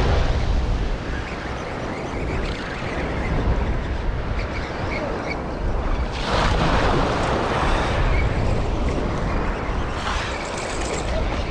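Small surf waves sloshing around a wader, with wind rumbling on the microphone; a wave surges up and breaks close by about six seconds in.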